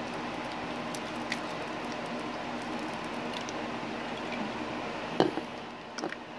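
Thick lotion-and-water mix pouring from a plastic bowl into a plastic bottle with soft squishing, over a steady background hum. A sharp knock comes about five seconds in, with a few lighter knocks just after, as the bottle is handled.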